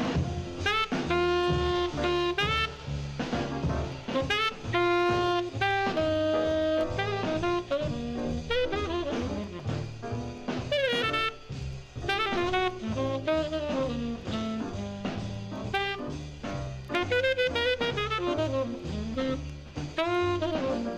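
Instrumental break in a jazz R&B band arrangement: a saxophone leads the melody with brass and a drum kit over a stepping bass line.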